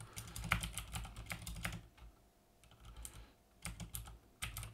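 Computer keyboard typing: a quick run of key clicks over the first couple of seconds, a short pause, then more clicks near the end, as a mistyped terminal command is backspaced and retyped.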